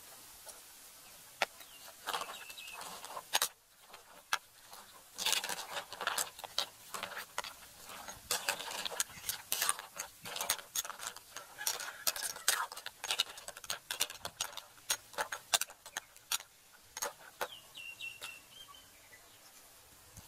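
Irregular sharp clicks and light knocks, denser through the middle, with a short high chirp about two seconds in and another near the end.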